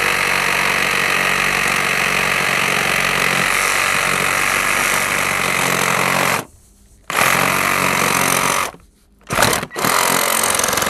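Reciprocating saw cutting through schedule 40 PVC conduit, running steadily for about six seconds, stopping briefly, then in two more runs and a short burst before it cuts off near the end as the pipe is cut through.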